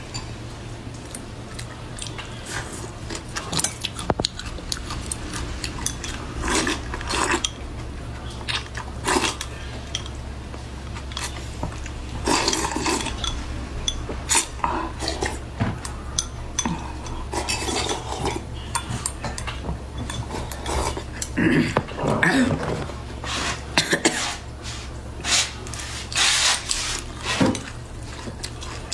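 Eating noodles from a bowl: utensils clicking and clinking against the dish, with short irregular eating sounds, over a steady low hum.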